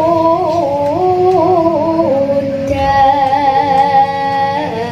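A young sinden singing a Javanese song into a microphone: a slow line of long, wavering held notes that step up and down between pitches. Instrumental accompaniment plays beneath, and fuller steady tones come in at about the middle.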